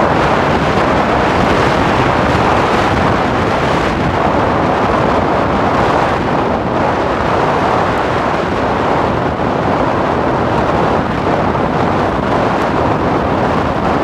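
Steady wind noise on the microphone of a moving vehicle, mixed with road noise.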